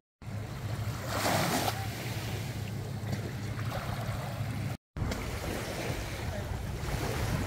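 Small waves washing and lapping on a sandy shore, with the loudest wash about a second in and softer ones later, over a steady low rumble of wind on the microphone. The sound drops out completely twice for a split second.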